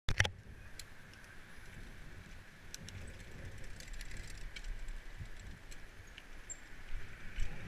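Bicycle being ridden over block paving and onto a tarmac road: low rumble of tyres and wind on the microphone, with scattered small clicks and rattles from the bike. A couple of sharp clicks sound right at the start.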